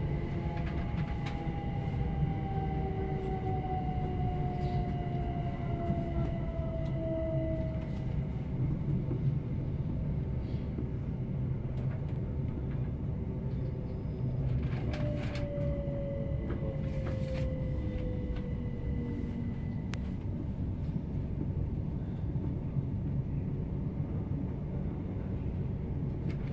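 Interior running noise of a Great Western Railway Class 387 electric multiple unit on the move: a steady low rumble, with a faint motor whine that falls in pitch twice as the train slows. A few sharp clicks come around the middle.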